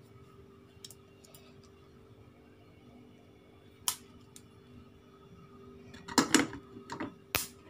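A quiet kitchen with a steady low hum and a few sharp clicks while black peppercorns dry-roast in a steel pot. About six seconds in comes a burst of louder knocks and clatter.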